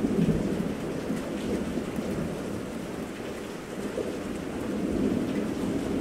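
Steady rain with rolling thunder rumbling through it, the rumble easing a little past the middle and swelling again near the end.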